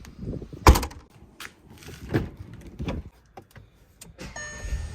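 A door shutting with a sharp thump a little under a second in, followed by a few lighter knocks and handling noises.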